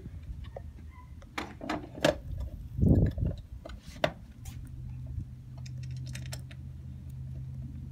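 Scattered light clicks and clinks of small metal hardware, screws and mounting pieces for a locking fuel door, being handled and fitted. A steady low hum comes in about halfway through.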